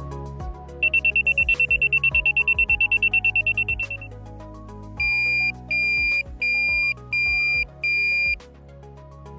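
PATLITE NE-USB signal light's buzzer sounding two of its alert patterns. First comes a rapid train of short high-pitched beeps, about ten a second, that fades out after about three seconds. Then come five separate high-pitched beeps, each about half a second long. Background music plays throughout.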